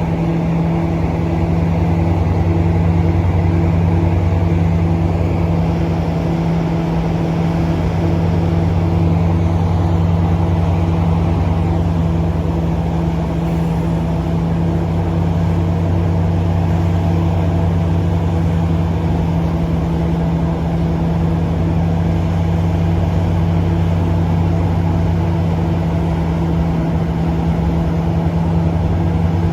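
An NJ Transit ALP-45DP locomotive's diesel engines running steadily at idle: a loud, constant low hum with no changes in pitch.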